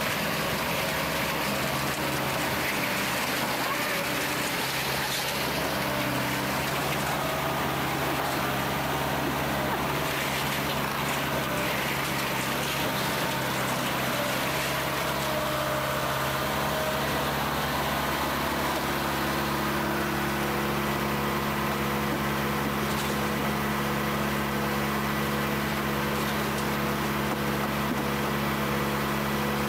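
Heavy equipment's diesel engine running steadily, its engine note shifting to a new steady tone about two-thirds of the way through.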